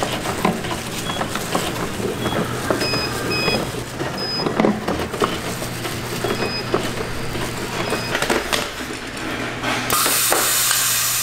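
Nurungji-chip factory machinery running: a steady low hum under irregular clatter and clicks, with short high electronic beeps repeating every second or two. A loud hiss comes in near the end.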